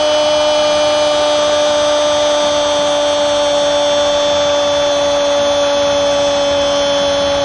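A football commentator's long, unbroken goal cry held on one high steady note over the stadium noise.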